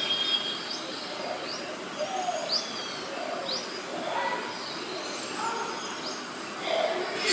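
Several birds calling: short, sharp chirps sweeping upward in pitch about once a second, mixed with lower, softer calls, and a louder call near the end.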